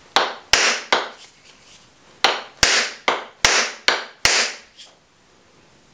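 Cherry wood mallet striking the butt end of a wooden axe handle, driving the handle up into the axe head's eye to seat the head. About nine sharp wooden knocks: three in quick succession, a pause of about a second, then six more at a steady pace, with a faint last tap.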